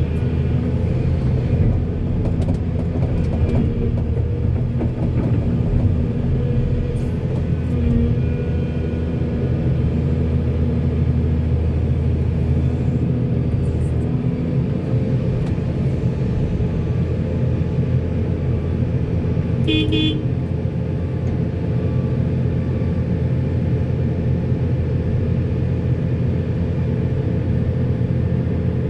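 Heavy diesel engines of a backhoe and dump truck running steadily under load. About two-thirds of the way through, a short higher-pitched toot sounds briefly.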